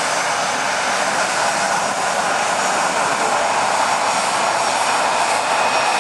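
Jet engines of an Airbus A320-family airliner running at high power on the runway as it starts its take-off roll: a steady, loud roar that grows a little louder near the end.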